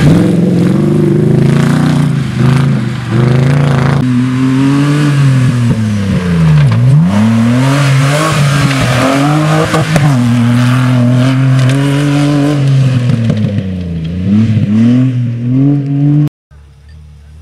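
Off-road rally Jeep engines revving hard under load, the pitch rising and falling again and again as the throttle is worked, with occasional knocks. The sound cuts off suddenly near the end and gives way to a much quieter stretch with a few faint clicks.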